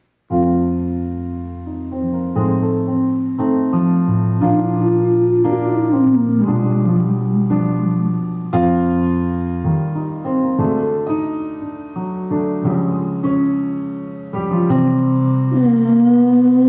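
Piano or electric keyboard chords played, a new chord struck about every second, with a note gliding down around the middle and a long held note starting near the end.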